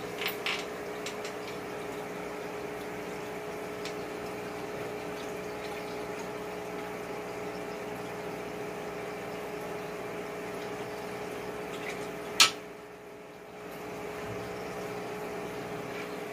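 Aquarium air pump and filter running, a steady hum over bubbling water. There are a few light clicks near the start and one sharp click about twelve and a half seconds in.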